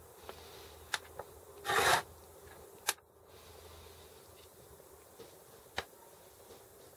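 Greasy metal internals of a Sturmey-Archer S5C gear hub being handled and taken apart: a few light clicks of small parts, and a short rubbing scrape near two seconds in, the loudest sound.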